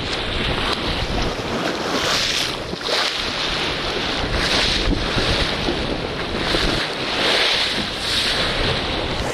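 Strong wind rumbling on the microphone, with water hissing and splashing along the hull of a Chrysler 22 sailboat as it drives through chop. The hiss swells every second or so.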